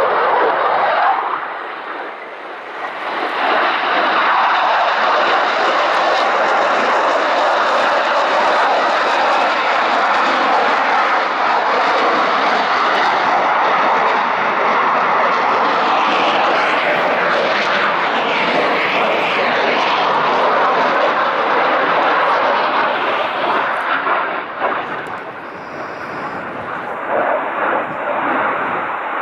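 Loud, continuous jet noise from a Eurofighter Typhoon's twin turbofan engines as the fighter flies overhead. The noise eases briefly about two seconds in and again near the end.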